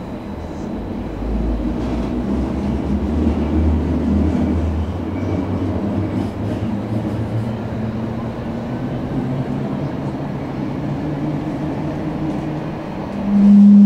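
Tram heard from inside the car as it pulls away and runs along the track. The low rumble and hum of motors and wheels grows louder over the first two seconds, then holds steady. Near the end a loud, steady low tone starts suddenly.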